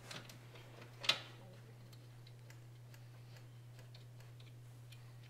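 Faint clicks and light metallic ticks of a bolt being threaded in by hand and a replacement alternator settling against its mounting bracket, with one sharper click about a second in, over a steady low hum.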